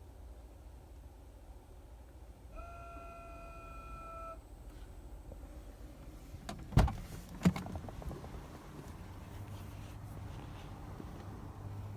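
2011 Toyota Prius making an unidentified weird sound: a steady electronic beep for about two seconds, then two sharp clunks less than a second apart, then a low steady hum that comes in.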